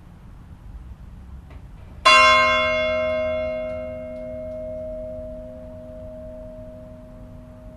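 A single stroke of one of Neskirkja's church bells about two seconds in, its hum ringing on and slowly fading.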